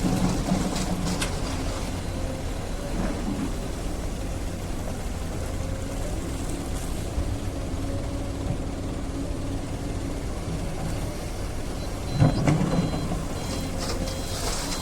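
Hydraulic excavator's diesel engine running steadily under load, with a few knocks near the start and a loud clunk about twelve seconds in. An alarm starts beeping near the end.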